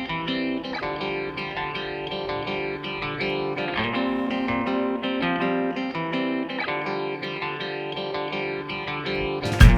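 Background music led by a plucked guitar, with a louder section with heavy bass and drum hits coming in near the end.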